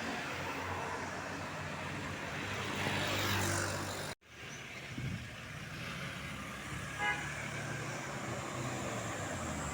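Roadside traffic with heavy vehicle engines running and passing, their noise swelling about three seconds in. The sound drops out for an instant just after four seconds. About seven seconds in there is a single very short horn toot.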